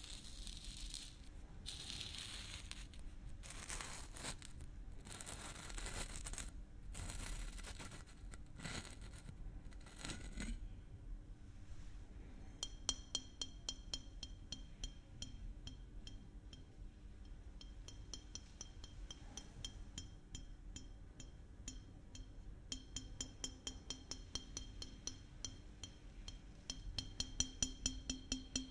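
A plastic screw cap twisted and scraped against the neck of a glass maple-syrup bottle, a run of short rustling scrapes. From about halfway on, quick irregular taps on a small capped glass bottle follow, each tap ringing briefly; the taps come faster and louder near the end.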